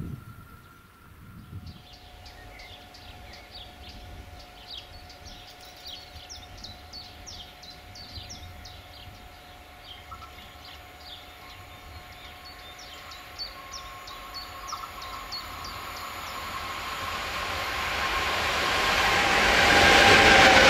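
Birds singing in quick runs of short falling notes. From about two-thirds of the way in, an electric locomotive hauling a container freight train approaches, and its wheel and rail noise swells steadily to its loudest as it passes close by at the end.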